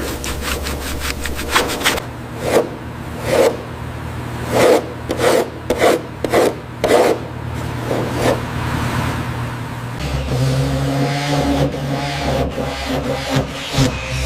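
Repeated rubbing and scraping strokes, fast and even for the first two seconds, then slower and irregular, giving way to a steadier mechanical whir over the last few seconds.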